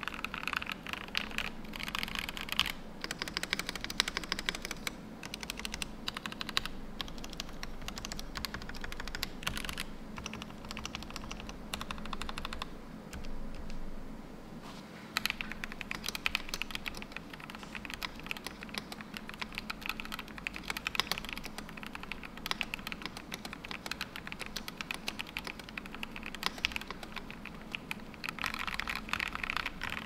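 Typing sound test on a stock Yunzii IF98 full-size mechanical keyboard with Gateron Yellow linear switches: fast continuous keystrokes and space bar presses, with a short lull about halfway through. The board sounds a little hollow, and the space bar and its stabilizers need work.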